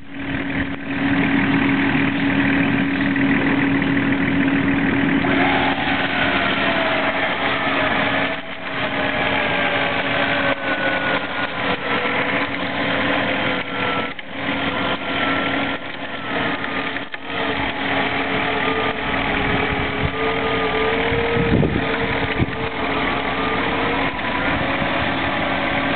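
Off-road 4x4 engines in snow: one idles steadily, and from about five seconds in a second engine runs under load with its revs wavering and slowly sagging, as a stuck 4x4 is worked out of deep snow on a tow strap.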